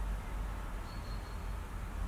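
Steady low background hum with no distinct event, and a faint brief high tone about a second in.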